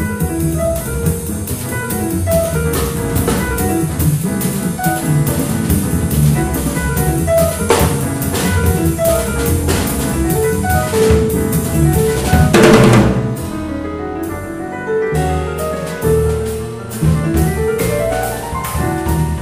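Live jazz piano trio of grand piano, double bass and drum kit playing, with a steady cymbal beat under the piano and walking bass. Cymbal crashes come about eight seconds in and more loudly past the middle. The bass drops out for a moment after that, and a rising piano run comes near the end.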